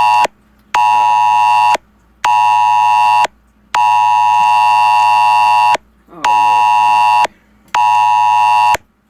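Smartphone alert tone beeping loudly: a steady electronic tone with half-second gaps, two one-second beeps, then a two-second beep, then two more one-second beeps.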